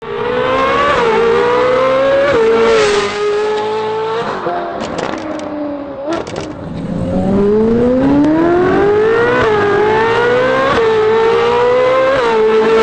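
Ferrari 458 Italia's 4.5-litre V8 through a catless, valved aftermarket exhaust, accelerating hard: the pitch climbs and drops sharply at several upshifts. About halfway through it goes softer and lower off the throttle with a few sharp cracks from the exhaust, then climbs again in one long rise and more quick shifts.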